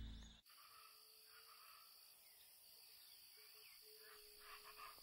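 Background music ends about half a second in, leaving near silence with faint outdoor ambience and a steady, high-pitched insect call.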